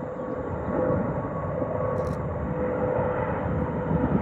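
Airbus A350 airliner's Rolls-Royce Trent XWB jet engines roaring as it climbs out just after takeoff, with a faint steady whine over the roar, getting louder about a second in.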